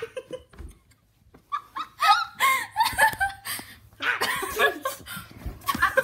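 Girls laughing in short bursts, starting about a second and a half in and getting louder toward the end.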